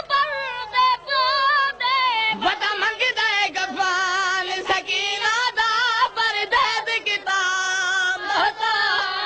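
Voices singing a Shia mourning lament (noha) through a microphone and loudspeakers, in long held notes with a heavy, wavering vibrato.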